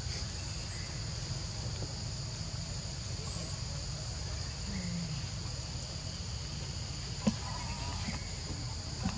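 A steady, high-pitched drone of insects calling without a break, over a low background rumble; a single sharp click comes about seven seconds in.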